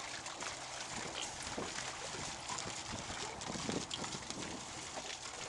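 Faint water sloshing as dogs wade in plastic wading pools, over steady outdoor background noise.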